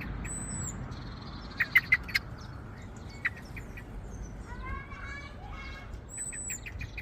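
Garden birds calling: a quick burst of sharp clucking notes about two seconds in, a thin high whistle near the start and again near the end, and a short run of rising chirps around the middle.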